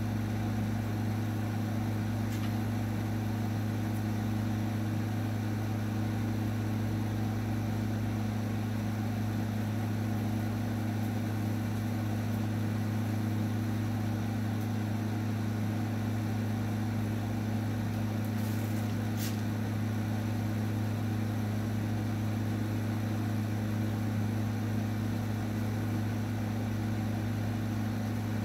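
A steady low electrical hum that holds one unchanging pitch throughout, with a couple of faint brief ticks about two-thirds of the way through.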